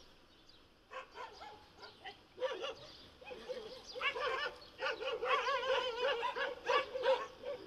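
An animal's whining cries, pitched and rapidly wavering, starting about two and a half seconds in and growing stronger.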